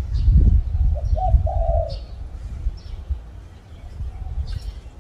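Spotted dove cooing, with two short notes about a second in, while smaller birds give short high chirps every second or so. A loud low rumble fills the first two seconds.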